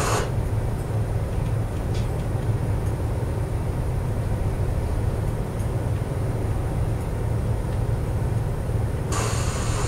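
Steady low machinery rumble. A hiss across the highs comes in near the end.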